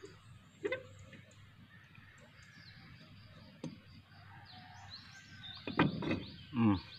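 A rusty rear brake drum on a Bajaj RE auto-rickshaw is pulled off its hub: a sharp metal click about three and a half seconds in, then two louder scraping sounds near the end as the drum comes free. Birds chirp faintly throughout.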